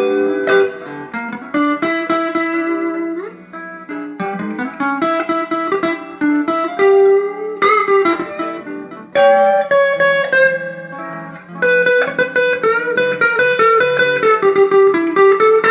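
Fender Telecaster electric guitar on its neck pickup, played through a tube amplifier: a single-note lead line of picked notes, some held and left ringing, with the neck pickup's less bright tone.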